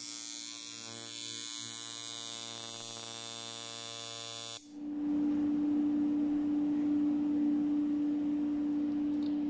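Handmade coil shader tattoo machine running, an electric buzz with a strong high hiss. About four and a half seconds in the buzz cuts out for an instant and gives way to a louder, steadier hum with one strong tone.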